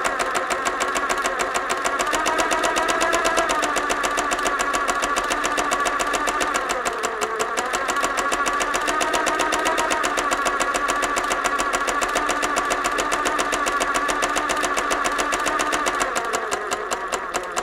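Electric sewing machine running continuously, its needle mechanism stitching in a rapid, even rhythm.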